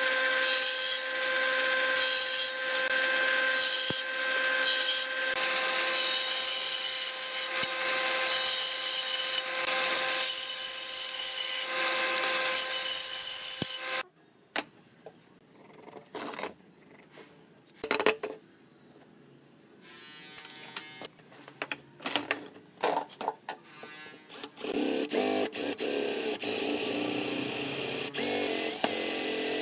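A stationary woodworking machine runs with a steady whine while a pine workpiece is fed through it, then cuts off abruptly about halfway through. Scattered knocks of wood being handled on a bench follow. Near the end a Hitachi cordless drill bores into a pine block.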